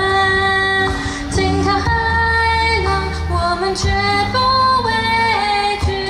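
A cappella vocal group singing an army song in close harmony, women's voices on top over a sung bass line, with no instruments. The chords are held and move in steps.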